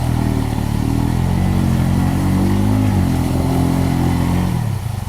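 ATV engine under throttle, its pitch rising and falling, then dropping back to a lumpy idle near the end.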